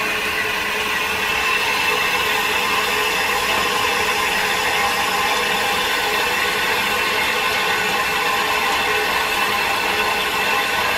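Steady hissing rush from a working steam boiler's brass valve fittings, with a thin stream of water running from a pipe into a metal cup.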